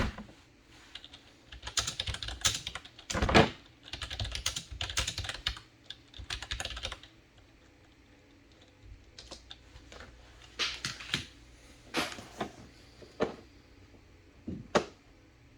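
Typing on a computer keyboard: quick runs of key clicks for several seconds, then scattered single clicks.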